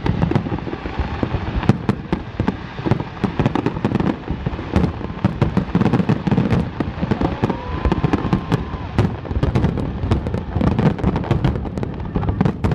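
Aerial fireworks display: a continuous barrage of shell bursts and crackling, many sharp bangs a second with no break.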